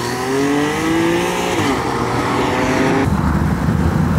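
Porsche 911 flat-six accelerating away, its engine pitch rising steadily with a brief dip partway through. About three seconds in there is a sudden switch to the low, uneven rumble of a 1960s Chevrolet C10 pickup's engine.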